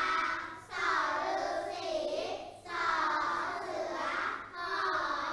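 A class of young children chanting in unison in a sing-song rhythm, reciting the eleven Thai high-class consonants in phrases of about two seconds each.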